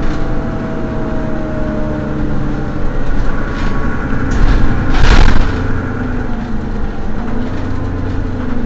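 Mercedes-Benz Citaro city bus engine idling steadily while the bus stands at a stop, with a short, loud hiss about halfway through.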